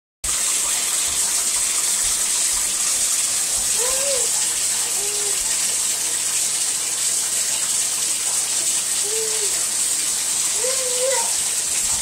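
Bathtub tap running steadily, pouring water into the tub. A baby makes short vocal sounds four times over it.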